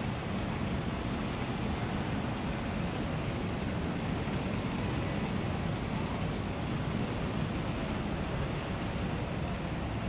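Steady city street ambience: an even, low rumble of traffic with no distinct events.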